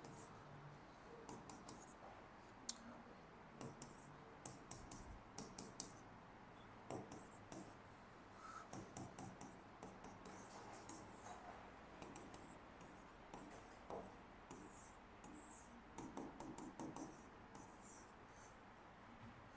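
Faint scratching of handwriting, short runs of pen strokes with pauses between.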